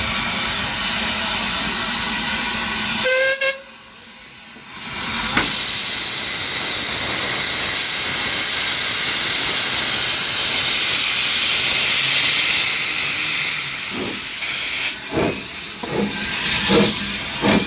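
Steam locomotive letting off steam: a loud, even hiss starts suddenly about five seconds in and lasts about ten seconds. It gives way near the end to a string of short, irregular puffs.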